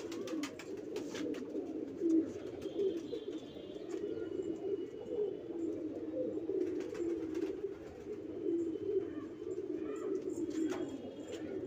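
Banarasi domestic pigeons cooing without a break, their low rolling calls overlapping, with a few faint clicks.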